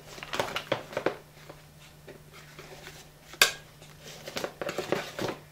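Hands rummaging in a cardboard shipping box: crumpled packing paper rustling and small plastic accessories and cables clicking and clattering against each other. One sharp knock about three and a half seconds in, and a cluster of clicks near the end.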